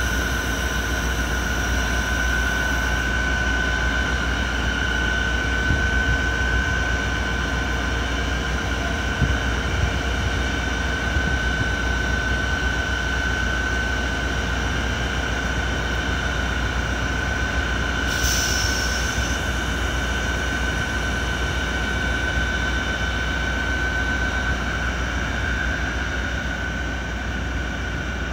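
Deutsche Bahn class 218 diesel-hydraulic locomotive idling steadily while standing at the platform, a constant engine drone with a steady whine over it. A brief hiss sounds about two-thirds of the way through.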